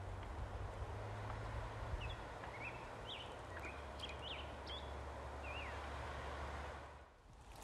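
Outdoor ambience: a steady hiss with a low rumble, and a bird giving a string of short chirps in the middle. The sound fades out near the end.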